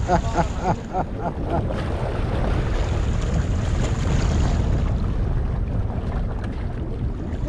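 Wind buffeting the microphone, a steady low rumble, over the sea washing against the breakwater rocks. A voice is heard briefly at the start.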